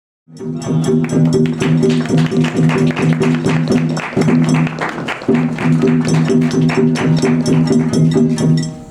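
Rakugo entrance music (debayashi): plucked shamisen with drums in a quick, steady rhythm, starting abruptly just after the start.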